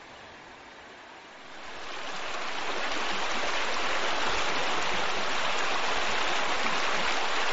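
Creek water rushing over rocks, fading in from a faint steady hiss about a second and a half in, then running loud and steady.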